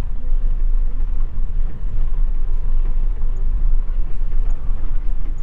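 Low, steady rumble of a car driving, engine and road noise.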